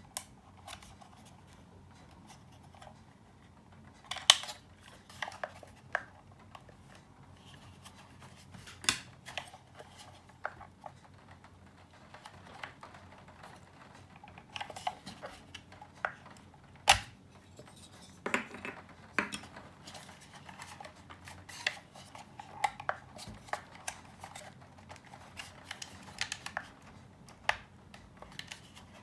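Hands and small tools working on the plastic casing and parts of an Asus ROG Strix 7.1 amplifier unit during disassembly: irregular clicks, taps and short scrapes, the sharpest about four seconds in and again near the middle.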